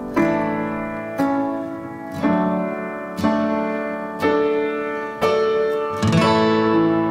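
Acoustic guitar strumming chords, with a fresh stroke about once a second and each chord ringing on until the next.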